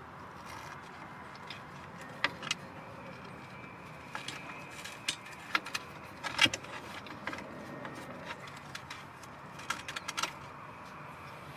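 Scattered light metallic clinks and taps of camp cookware and utensils being handled, irregular and of varying loudness, the sharpest about six and a half seconds in.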